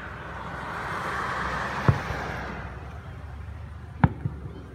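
A car passes on the street, its tyre and engine noise swelling and fading over about three seconds. Two sharp fireworks bangs come through, one about two seconds in and one near the end.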